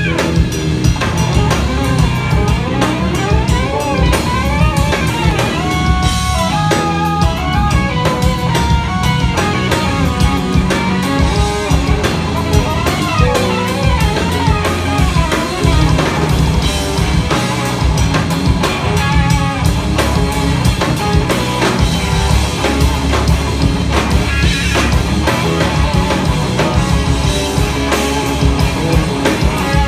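Live instrumental trio of electric guitar, electric bass and drum kit playing together. A guitar lead with bent, gliding notes runs over a heavy bass line and busy drumming.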